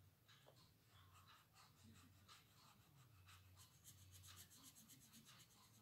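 Faint scratchy rubbing of a paper blending stump on coloured pencil on paper, blending the pencil dry in many short back-and-forth strokes that come quicker in the second half.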